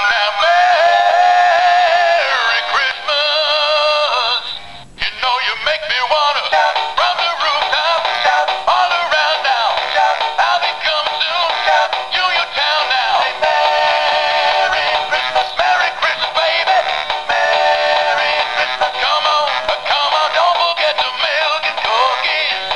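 Singing and dancing plush toy dog playing a song through its small built-in speaker: a singing voice over music, thin with almost no bass, with a brief break about five seconds in before the song carries on.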